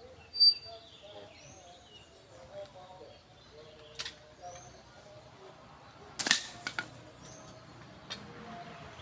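Sharp clicks and snaps from linemen's hand tools working a splice on an overhead power cable, the loudest a quick cluster of three or four about six seconds in. Birds call in the background, with short repeated coos.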